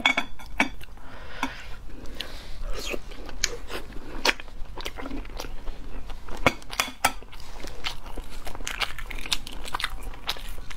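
Close-up crackling of eggshell as a boiled half-hatched egg is cracked and picked apart by hand: many small sharp cracks in quick, uneven succession, mixed with chewing.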